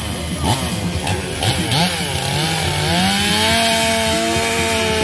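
Two-stroke chainsaw revved in short up-and-down blips, then rising about halfway through and held steady at full throttle.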